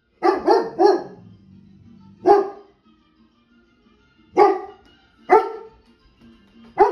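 A large dog barking at a cartoon dog on the television: a quick run of three barks, then four single barks spaced out.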